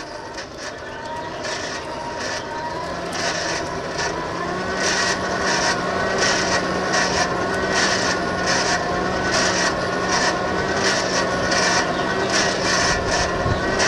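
Hand-cranked forge blower whining as it is spun up, louder over the first few seconds and then steady, with a hiss of air through the coal fire that pulses about twice a second with the cranking.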